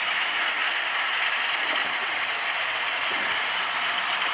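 Vintage Bachmann HO-scale powered track-cleaning car running along the rails, a steady, even whir from its motor and scrubbing brush.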